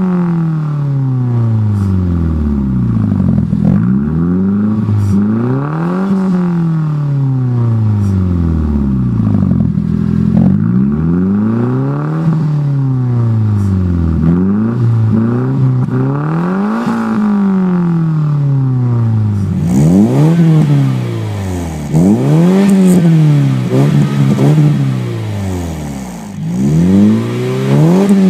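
Nissan Pulsar GTi-R's turbocharged SR20DET four-cylinder revved repeatedly at standstill through a 5zigen Boardermax 304 exhaust, its pitch rising and falling about every two to three seconds. About twenty seconds in, it changes to an N15 Pulsar with a 2-inch exhaust being revved in quicker, more frequent blips.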